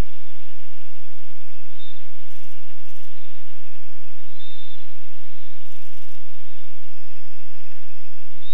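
Scheibe SF-25 Falke motor glider in cruise, heard from inside the cockpit: its engine and propeller drone steadily under a loud rush of wind.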